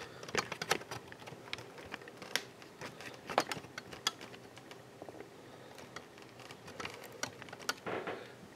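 Scattered light clicks and taps of objects being handled around a glass tank, over quiet room tone.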